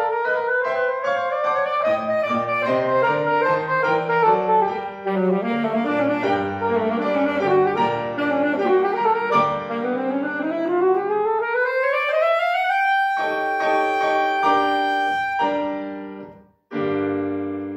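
Alto saxophone and grand piano playing a fast passage; the saxophone sweeps up in a long rising glide to a high held note over piano chords. After a brief break, both strike a loud final chord near the end that dies away.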